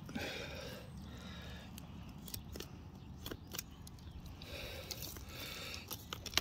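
Fillet knife slicing a large snapper fillet away from the rib cage: soft scraping strokes, with a few light clicks in the middle as the blade works over the bones.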